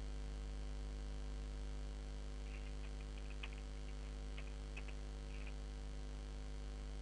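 Steady electrical mains hum with its evenly spaced overtones, picked up on the recording line. A few faint short clicks come about halfway through.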